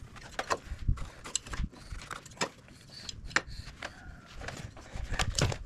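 Irregular light clicks and taps of hand tools being handled, about ten in all, such as a square and tape measure being set on a timber for marking out.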